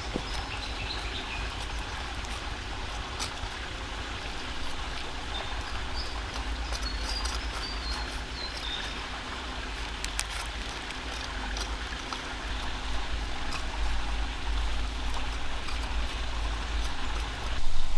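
Steady outdoor background noise: an even hiss over a low rumble, with a few scattered small clicks and faint short high chirps in the first half.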